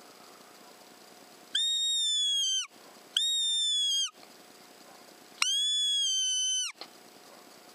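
A predator call, the kind used to lure in a fox, sounded three times. Each call is a steady, high squeal about a second long that drops in pitch at its end.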